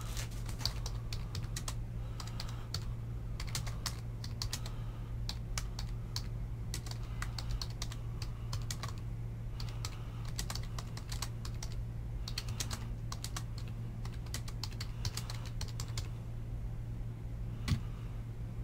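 Computer keyboard typing in irregular runs of keystrokes, which stop after about sixteen seconds, with one last click near the end. A steady low hum sits under it.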